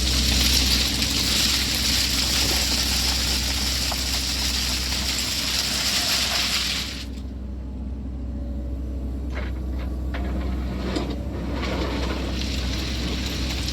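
Sany SY80 excavator's diesel engine running steadily under a loud rushing hiss of gravel pouring and sliding off the bucket, which cuts off suddenly about halfway through. A few stones clatter a couple of seconds later.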